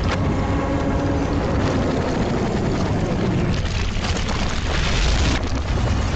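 Loud, steady rumbling sound effect from an animated cartoon's soundtrack, heavy in the low end. It starts abruptly and runs on without a break.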